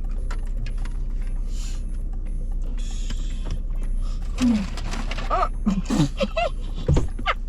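Exaggerated moaning from a man eating: short, mostly falling vocal glides in the second half, after a few brief rustles. A steady low hum runs underneath inside the car.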